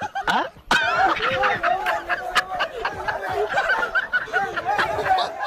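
Several people laughing and snickering over excited chatter.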